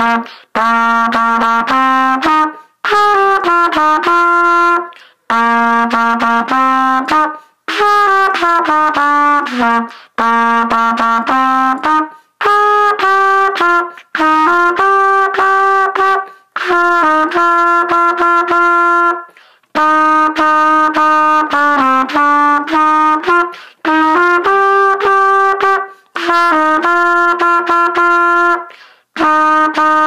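Solo trumpet playing a simple melody of held notes in short phrases, with a brief break for breath every two to three seconds.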